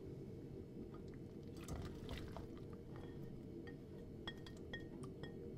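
Kitchen food-preparation sounds: a short crunching rustle, then about six light clinks, each with a brief high ring, as of a utensil against a dish.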